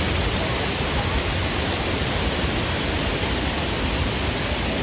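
Cummins Falls waterfall: a steady rush of falling water.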